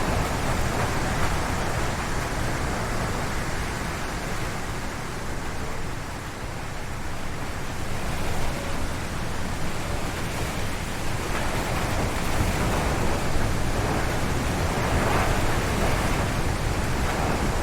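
Strong wind gusting through forest trees, a steady rushing noise that eases a little and then swells again in gusts.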